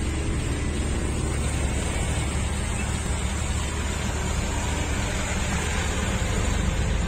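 Steady low vehicle rumble with an even hiss.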